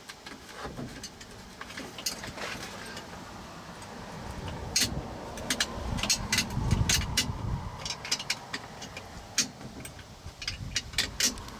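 Irregular sharp metallic clicks and clunks, with some rumbling handling noise, as a replacement ignition switch is worked and pressed into place on a truck's steering column. The clicks come thickest in the second half.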